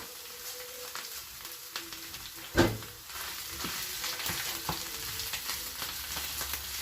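Garlic and spinach frying in hot oil in a pan, a steady crackling sizzle. A single sharp knock, like a utensil against the pan, about two and a half seconds in, after which the sizzle gets a little louder.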